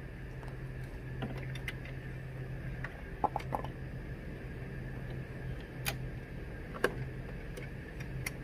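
A few scattered, sharp metallic clicks and clinks of a socket wrench and long extension working a bolt deep in the engine bay, over a steady low hum.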